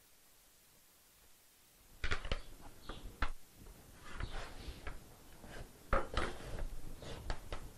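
Eggplant being sliced on a plastic mandoline slicer: irregular scraping strokes as it is pushed across the blade, starting about two seconds in, the loudest about six seconds in.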